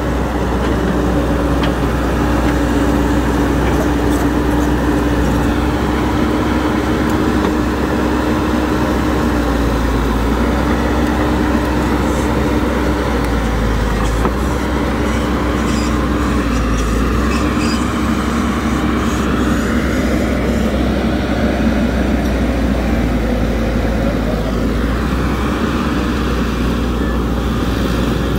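Caterpillar hydraulic crawler excavator running, its diesel engine working steadily as the machine moves. Rising and falling whines come in over it in the second half.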